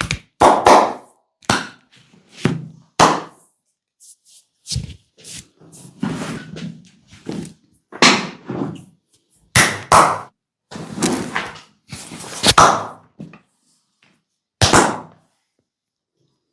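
Hands or massage tools striking a person's body in massage percussion: a series of dull slaps and thumps at uneven intervals, with gaps of up to a second or two between groups.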